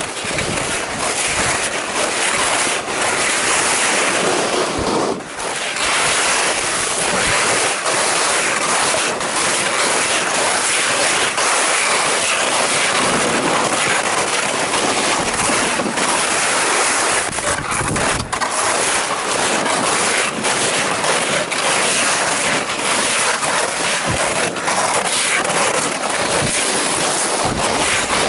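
Skis sliding and scraping through snow along a ski track: a steady rushing noise broken by frequent short scrapes, with wind on the microphone.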